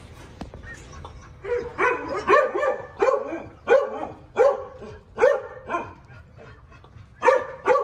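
An animal giving short, barking calls, about ten in a quick irregular series, with a pause before two more near the end.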